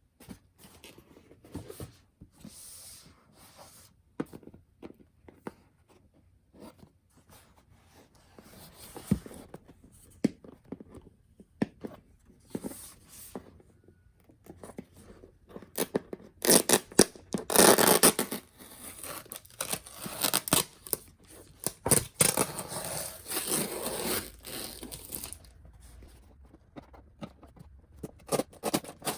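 Packaging of a new iPhone 12 Pro box being handled and torn open by hand: scattered light clicks and scrapes at first, then a louder stretch of paper tearing and crinkling in the second half.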